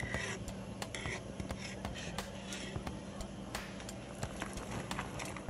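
Chopped onions sizzling in melted butter in a pan, with many irregular sharp pops and crackles over a steady low hum.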